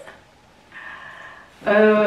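A person's voice holding one drawn-out note at a steady pitch, starting about one and a half seconds in, after a quiet pause.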